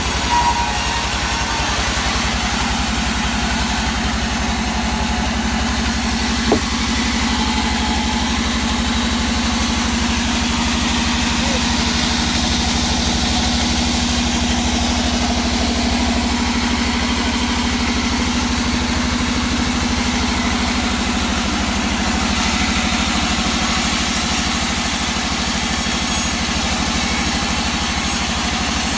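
An engine running steadily at constant speed, with no revving, and a single brief click about six and a half seconds in.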